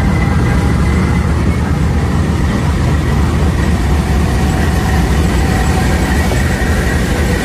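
Pakistan Railways diesel-electric locomotive idling at close range: a steady low engine drone with a thin high whine above it.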